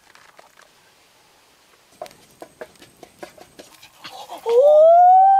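A dog howls: one long, loud call that starts about four and a half seconds in, rising in pitch, holding, then starting to fall. Before it come light clicks and scrapes.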